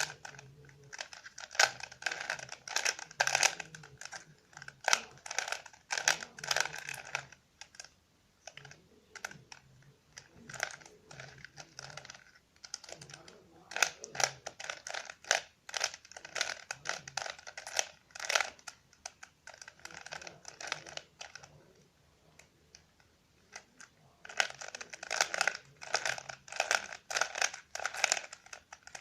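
A Rubik's Cube being turned by hand: quick runs of plastic clicks and clacks as the layers are twisted, in bursts of several seconds with a couple of short pauses between them.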